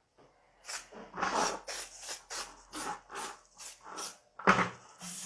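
Hand-held cloth wiping the inside of a clear acrylic globe in quick back-and-forth strokes, about three a second, a rasping rub. One stroke about four and a half seconds in is louder.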